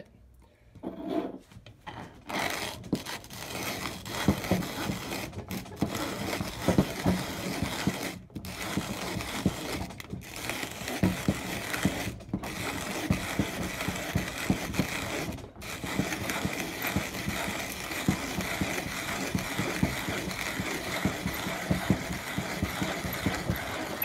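Vintage KyM 9290 Mokka manual conical burr coffee grinder being hand-cranked about 32 turns through a 7 g dose of coffee beans, set to its finest setting with the burrs just touching. The burrs make a steady crunching, crackling sound, with a few brief breaks in the cranking.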